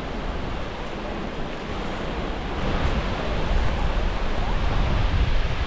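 Steady rushing roar of the Skógafoss waterfall mixed with wind buffeting the microphone. The low rumble grows louder about halfway through.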